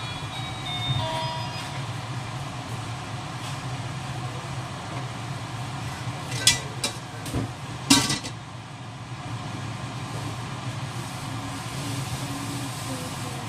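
Squid cooking in a wok over a steady low hum. A few sharp metal clanks come about six to eight seconds in, the loudest as the domed stainless-steel lid is set onto the wok.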